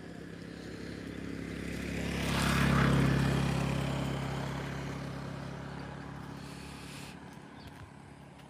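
A motor vehicle driving past, its engine and road noise growing louder to a peak about three seconds in, then slowly fading away.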